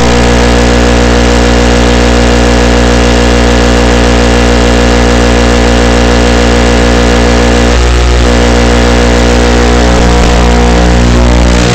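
Loud, steady electrical buzz made of many fixed hum tones, the kind of interference noise an analog FPV goggle DVR records on its audio track; it wavers briefly about eight seconds in and shifts slightly near the end.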